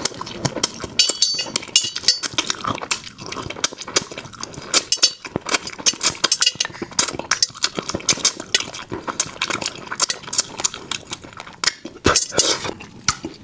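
Close-miked chewing of gelatinous spicy soft-shell turtle: a steady stream of wet smacking and sharp sticky clicks from the mouth, with no words.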